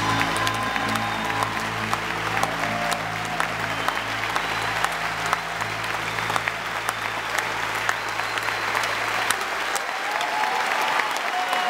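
Audience applauding and cheering at the end of a song, while the band's final held low chord rings under the clapping and fades out about nine seconds in.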